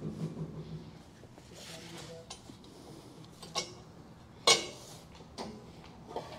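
Scattered metal clinks and clanks of tools and steel parts being handled, the loudest about four and a half seconds in.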